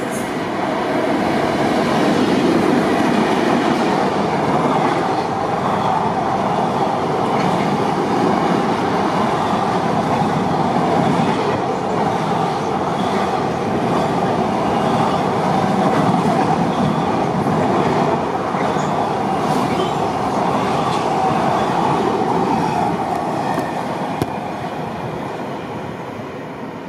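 A long train passing at speed, most likely a freight train, with steady wheel-on-rail noise and some clickety-clack over the rail joints. It builds up over the first couple of seconds and dies away near the end.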